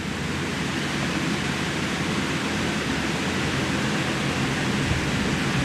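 Steady, even hiss with a low hum underneath, no changes or distinct events.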